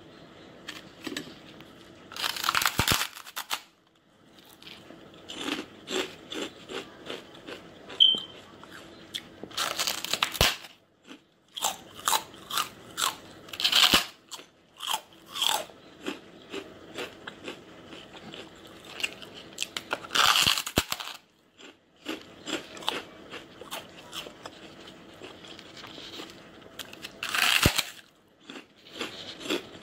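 Large puffed snack chips being bitten and chewed: about five loud crunching bites, each followed by a run of smaller crisp chewing crunches.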